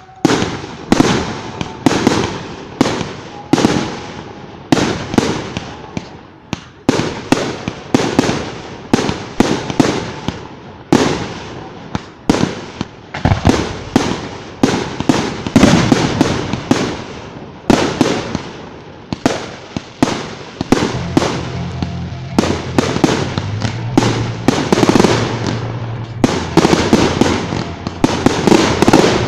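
Fireworks bursting in a rapid series of loud bangs, several a second, each trailing off in an echo. The bangs come thickest near the end.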